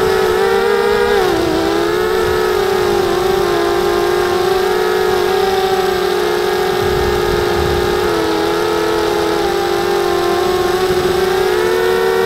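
Brushless motors and propellers of a 250-size FPV racing quadcopter whining steadily, heard close up from a camera on the craft itself. The pitch dips briefly about a second in and climbs a little near the end as the throttle changes.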